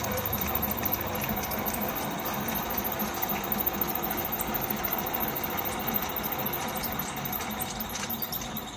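Three-phase electric motor driving a heavy flywheel, gearbox and alternator through belts: a steady, rhythmic mechanical running sound. The motor is labouring under more load than it can balance.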